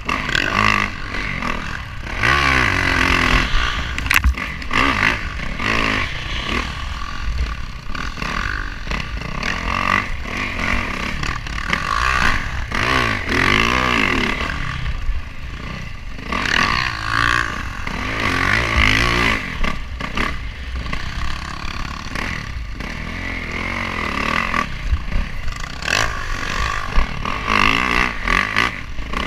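A 2018 Yamaha YZ450F's single-cylinder four-stroke engine revving up and down repeatedly while ridden, with wind buffeting a helmet-mounted camera.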